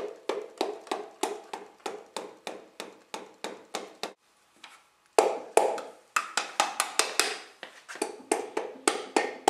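Quick, even taps of a hammer handle on a piston crown, driving the piston with its new rings through a ring compressor into the cylinder bore of an Onan engine, about three or four taps a second. The taps stop for about a second near the middle, then resume louder.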